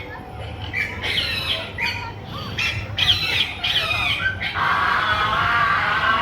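A bird squawking repeatedly in harsh calls about half a second long. From about four and a half seconds in, a denser continuous chatter takes over.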